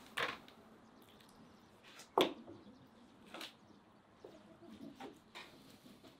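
A kitchen knife cutting raw chicken on a wooden cutting board: several sharp knocks of the blade against the board, spread out over the few seconds, the loudest about two seconds in.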